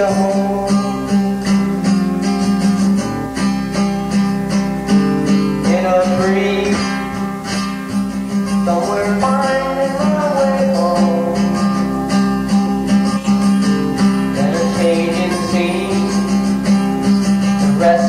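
Strummed guitar music from a 1983 home cassette recording playing back, with a melody line that slides between notes above a steady strum.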